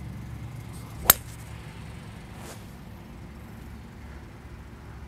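A single sharp crack of a Titleist TSi2 3-wood striking a golf ball about a second in, over a low steady hum.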